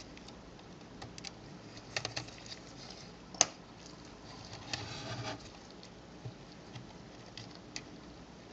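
Faint small clicks and light scraping as a small screwdriver pries at the plastic clip holding a compact camera's LCD unit and the unit is handled free, with one sharper click about three and a half seconds in and a brief rustle of handling just after.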